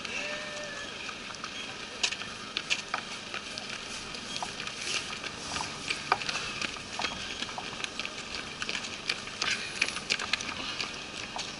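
Running footsteps of several runners on wet asphalt, irregular overlapping footfalls that come close as they cross the finish line.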